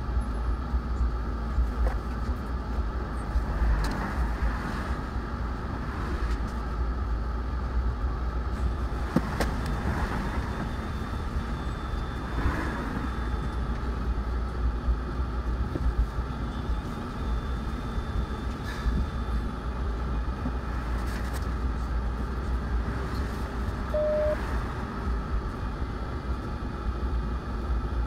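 City bus running with a steady low rumble, heard from inside the bus as it creeps forward in slow traffic.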